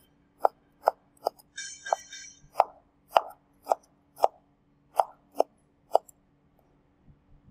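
Kitchen knife chopping vegetables on a cutting board: about a dozen crisp, even strokes, roughly two a second, stopping about six seconds in. There is a short rustle about two seconds in.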